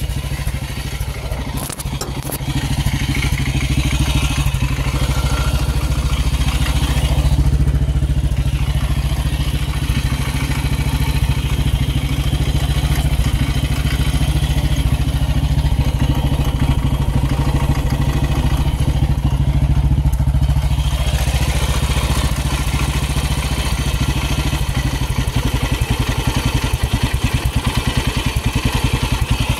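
Motorcycle engine running steadily, without revving, with an even beat that grows more distinct near the end. A few clicks about two seconds in.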